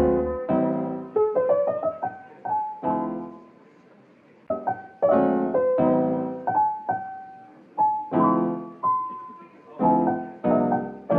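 Background piano music: slow struck chords and single melody notes that ring and fade away, with a brief pause about four seconds in.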